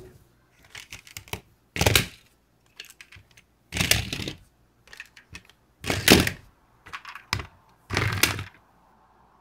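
Diecast alloy toy cars rolled in one after another over a cloth-covered surface: four short rattling runs about two seconds apart, with small clicks and knocks of the toys between them.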